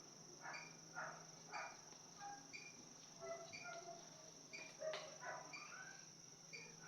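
Faint steady insect chirring with short chirps repeating about once a second, plus a few soft knocks and one sharp click about five seconds in.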